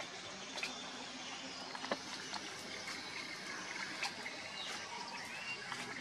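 Light trickling and splashing of pond water churned by small remote-control toy swimmers, with scattered faint clicks.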